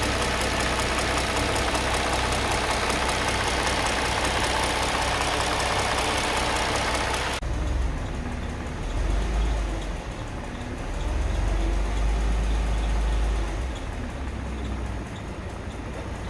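Mercedes-Benz M272 V6 engine running, with a fast, even ticking in the first part. About seven seconds in, the sound changes abruptly to a deeper rumble that rises and falls twice as the revs go up and come back. The tap is the one the owner hears between 700 and 1500 rpm and is trying to trace.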